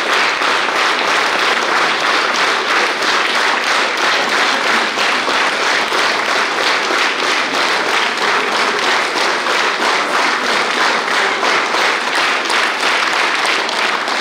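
Audience applauding: dense, steady clapping of many hands, at an even level throughout.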